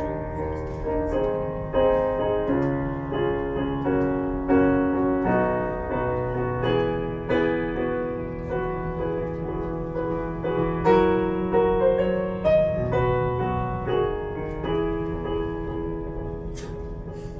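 Solo piano played live, without singing: held bass notes under chords that change every second or two, with a melody line on top, growing a little softer near the end.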